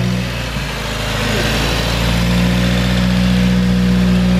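Subaru WRX's turbocharged 2.0-litre flat-four engine idling steadily; the idle note dips briefly about half a second in, then steadies again.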